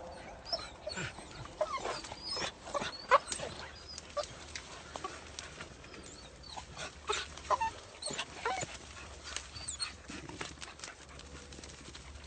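Rabbit-hunting beagles giving short, high-pitched whines and yelps, scattered and irregular, over rustling and snapping brush.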